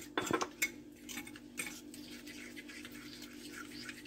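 Spoon stirring a wet marinade of milk, egg and spices in a ceramic dish, clinking and scraping against the dish, loudest in the first second. A steady low hum runs underneath.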